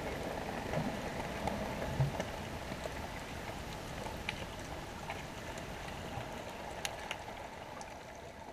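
Underwater sound picked up by a submerged GoPro: a steady crackling hiss dotted with sharp clicks, fading out near the end. It is the mystery sound that viewers are asked to identify.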